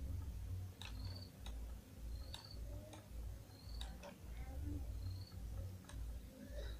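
Faint, irregular computer mouse clicks, about one every three-quarters of a second, over a low uneven rumble.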